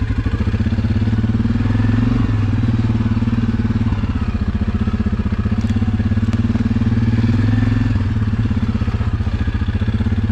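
Suzuki KingQuad ATV's single-cylinder engine running at low revs while riding a trail, a steady pulsing chug that rises a little about two seconds in and again around six to eight seconds in.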